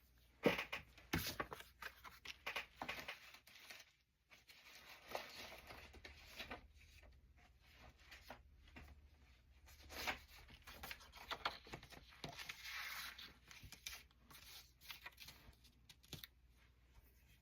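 Paper and cardstock being handled at a craft table: an irregular run of short rustling, scraping and clicking noises.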